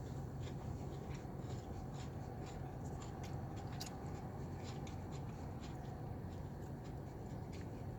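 A person chewing and eating a forkful of stir-fried chicken, with many small, irregular clicks and light scrapes over a steady low hum.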